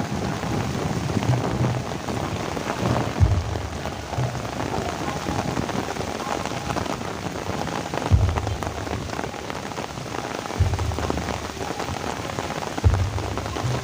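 Heavy rain falling steadily, a dense hiss and patter. A few low thumps break through it about four times.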